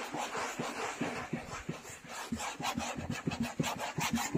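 A cloth soaked in isopropyl alcohol being rubbed hard over a white chair seat. It makes rapid back-and-forth scrubbing strokes that get quicker and louder about halfway through, at roughly five a second.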